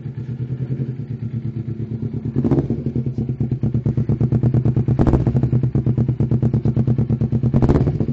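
Kawasaki Ninja 250R's parallel-twin engine idling with a steady pulsing note through an aftermarket R9 exhaust, with three short revs about two and a half seconds in, at about five seconds and near the end.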